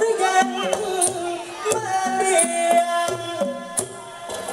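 Amplified singing in Thai likay style: a performer sings a wavering melody into a microphone over a traditional ensemble, with held instrumental notes and regular drum and percussion strokes.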